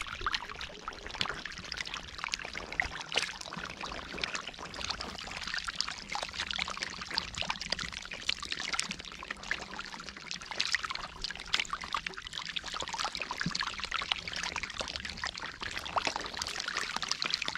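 Shallow water splashing and trickling as hands work through it: a continuous, irregular run of small splashes.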